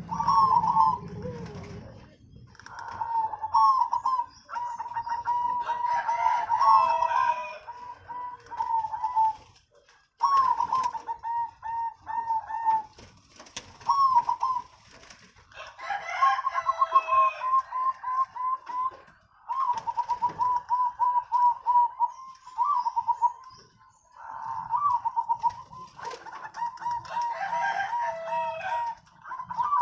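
Several zebra doves (perkutut) cooing, one rolling, trilled phrase after another with short gaps, the calls overlapping.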